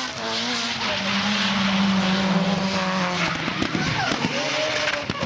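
Drift car engine held high in the revs with a steady note while the tyres skid and squeal; a little after three seconds in, the engine note breaks off and swings up and down as the throttle is worked.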